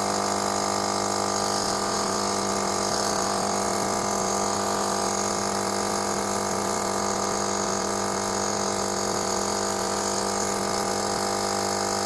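Vibratory water pump of a Melitta Caffeo CI automatic coffee machine humming steadily through the start-up rinse while no water comes out. The pump runs but builds no pressure, which the repairer suspects comes from clogged internal filters, the pump itself or the check valve.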